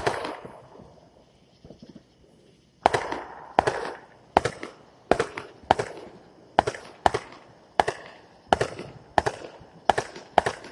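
Fireworks going off: one sharp bang with a fading tail at the start, then from about three seconds in a steady run of sharp bangs, about one every half to three-quarters of a second, each followed by a short echo.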